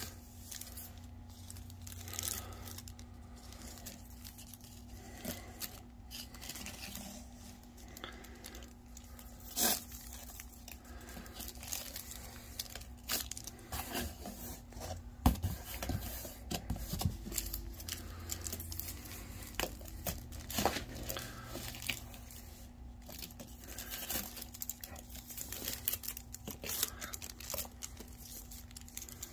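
Irregular rustling, scraping and scratching on cardboard: a printed strip dragged and flicked across a cardboard box while a cat inside plays at it, with a few sharper scrapes about ten and fifteen seconds in.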